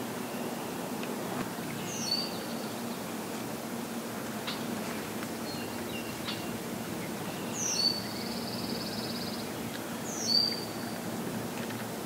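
A songbird singing three times, each phrase a sharp down-slurred note followed by a buzzy trill, the middle trill the longest, over a steady low background hum.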